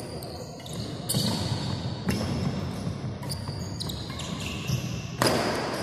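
Badminton rally in a large, echoing hall: rackets strike the shuttlecock in sharp hits about once a second, with the hardest hit near the end.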